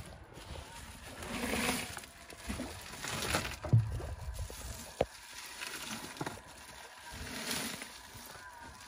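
Sea water sloshing against a small fishing boat's hull, swelling and fading every couple of seconds, with a few knocks on the boat, the loudest a thump a little under four seconds in.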